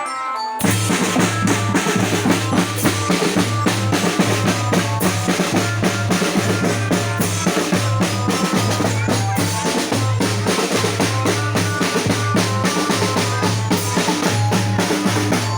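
Background music: a drum-kit-driven track whose drums and bass line come in about half a second in and keep a steady, busy beat.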